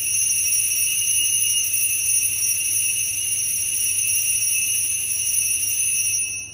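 Altar bells (Sanctus bells) ringing steadily for the elevation of the chalice at the consecration. The high ringing starts suddenly and stops after about six and a half seconds.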